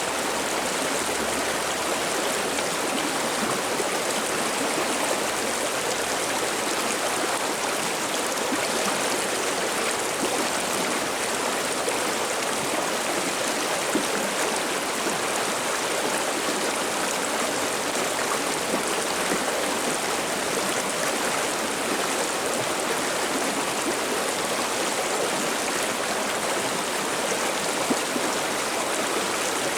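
Water babbling along a mountain river or stream, a steady rushing that does not change.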